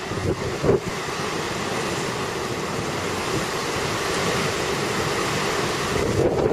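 Strong gale wind gusting through trees, a loud rushing that swells toward the middle, with wind buffeting the microphone near the start and end.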